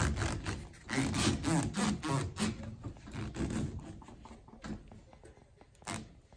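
A foam hand grip, wet inside with sprayed soapy water, being pushed and twisted down onto a zero-turn mower's steel control lever. It gives a run of short rubbing strokes that grow fainter, with one sharper knock near the end.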